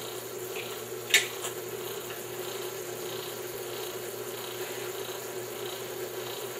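Electric motor of a bench grease-test rig running steadily, with a hum and a faint swish that repeats about two to three times a second as the test wheel turns. One sharp click comes about a second in.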